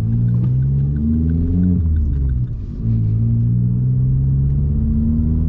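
Vauxhall Corsa engine accelerating, heard inside the cabin: the note rises, drops with a brief lull about two and a half seconds in as the gear changes up, then pulls and rises again.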